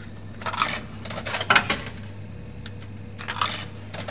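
Coins dropping into a jukebox in three short bursts of metallic clinks and rattles, over a steady low electrical hum.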